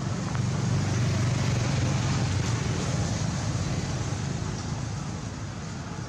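Low rumble of a road vehicle passing, swelling about a second in and slowly fading, over a steady hiss of background noise.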